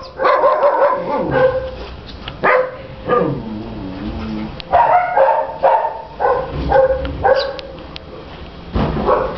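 A dog barking repeatedly: short, sharp barks that come in uneven bursts, with a falling yelp-like call about three seconds in.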